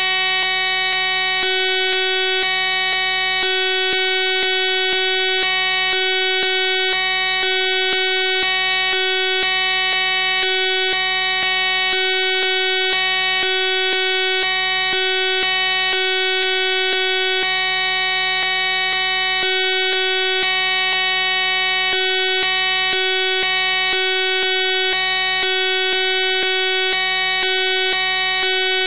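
Loud, steady electronic buzz made of many stacked tones, flickering in short blocks about every half second: a digital glitch in the audio track, not a real-world sound.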